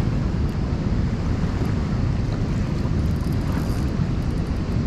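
Wind buffeting the microphone: a steady rushing noise heaviest in the low end, over the rush of river water.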